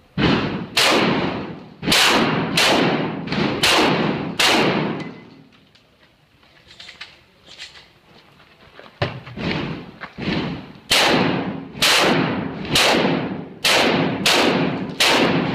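Shotgun fired in rapid strings, each shot a sharp blast with a long echoing tail: about seven shots in the first five seconds, a pause of about four seconds, then about a dozen more in quick succession.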